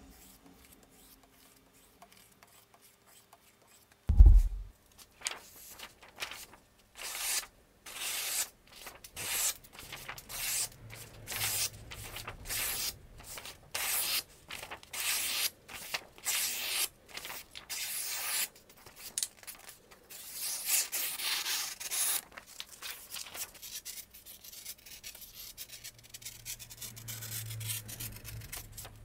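A single heavy thump, then repeated rasping strokes of a knife blade, about one a second, trailing off into fainter short scrapes.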